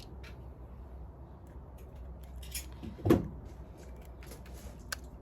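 Small metal door-lock parts clicking and tapping as a lock barrel is taken apart by hand, over a steady low hum. One brief, louder pitched sound about three seconds in.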